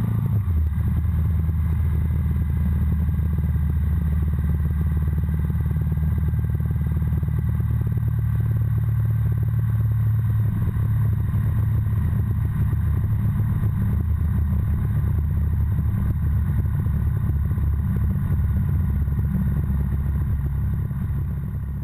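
Breezer ultralight aircraft's piston engine and propeller throttling back about half a second in, then running steadily at a low idle on the ground after landing.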